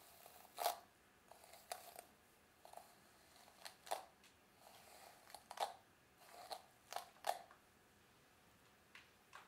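Hands scrunching and rubbing curly hair close to the microphone: irregular crisp, crackly rustles, about a dozen, thinning out near the end.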